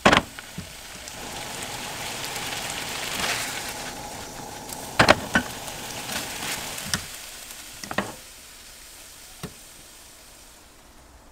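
Kimchi pasta sizzling in a frying pan as its sauce cooks down and browns on the bottom, stirred with chopsticks that knock against the pan a few times. The sizzle dies down over the last few seconds.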